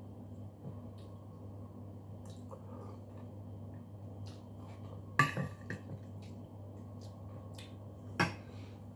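Metal spoon clinking and scraping against a dish, with small wet mouth sounds of eating. Two sharper clinks stand out, about five seconds in and near the end, the first ringing briefly.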